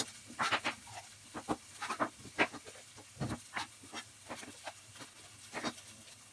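Chef's knife cutting through bell peppers and knocking on a wooden cutting board: a string of irregular sharp taps, a few per second. A faint steady sizzle from a frying pan runs underneath.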